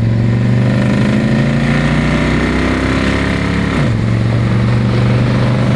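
1963 Plymouth Belvedere's engine pulling hard under full throttle in first gear, its note climbing, then dropping sharply about four seconds in as the push-button automatic shifts up; it then runs on at a steady pitch.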